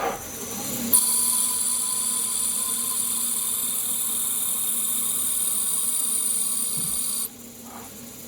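Small CNC lathe running while it turns a Delrin double-V bearing, a steady high-pitched whine that starts suddenly about a second in and cuts off abruptly near the end.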